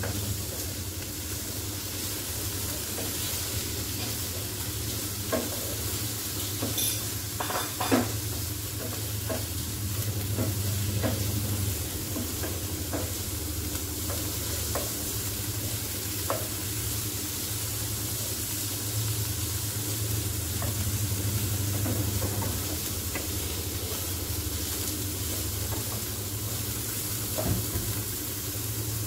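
Chicken pieces sizzling in oil with onion and garlic in a frying pan, stirred with a wooden spatula that scrapes and taps the pan now and then. A steady low hum runs underneath.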